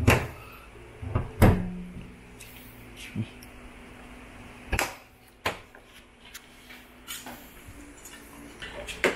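A few sharp clicks and knocks, about five spread out, the loudest about one and a half seconds in, as the bonnet pin latch on a carbon-fibre hood is handled.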